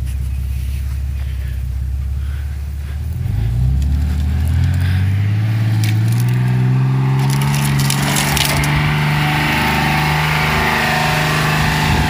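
A Ram 3/4-ton pickup's engine running low, then revving up about three seconds in as the truck drives down a sandy rutted bank, and holding a steady higher pitch. A few sharp crackles come near the middle.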